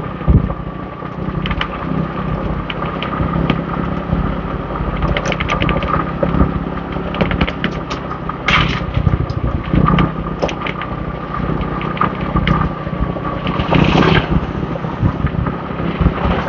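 Motorbike engine running steadily while riding, with wind buffeting the microphone in irregular gusts.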